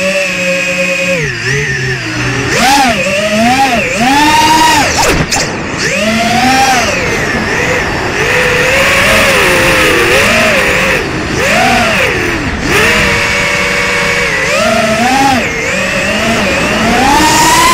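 ZMR250 FPV racing quadcopter's brushless motors and propellers whining close up, heard from its onboard camera. The pitch swings up and down continuously with the throttle as it dives, pulls up and turns.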